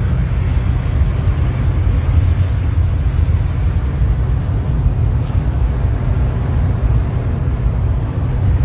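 Inside the cabin of a 1965 AMC Rambler 770 Cross Country station wagon on the move: a steady low rumble of its 287 V8 and the road.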